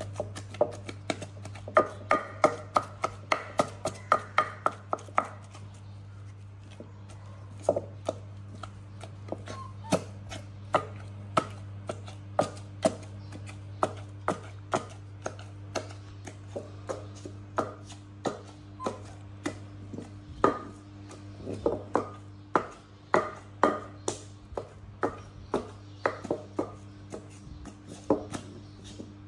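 Wooden pestle pounding meat in a clay mortar, a steady run of dull knocks about two to three a second, with a short pause about six seconds in.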